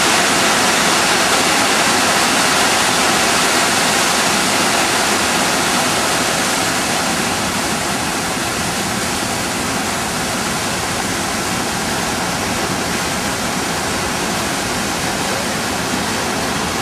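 A river in flood, its water rushing loudly and steadily, easing a little a few seconds in.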